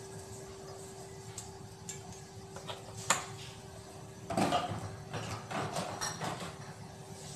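Kitchen handling noises: a single sharp click about three seconds in, then a couple of seconds of knocks and clatter, over a steady low hum.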